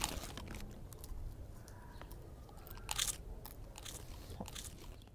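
A person chewing popcorn, with crisp crunches scattered through the chewing and the loudest crunches about three seconds in.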